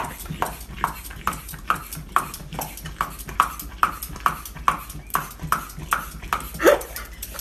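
Hand vegetable peeler scraping down a raw carrot in quick, regular strokes, about two or three a second.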